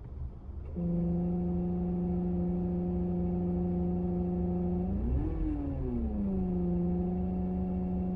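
Abnormal droning hum from a Suzuki car's air-conditioning compressor over the low rumble of the running engine, starting about a second in and holding a steady pitch. About five seconds in, the pitch rises and falls back once. This noise is the sign of the compressor fault that leaves the air conditioning not cooling.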